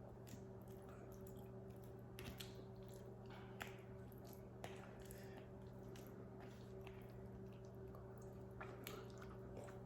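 Faint chewing while eating, with a few scattered small clicks, over a steady low hum.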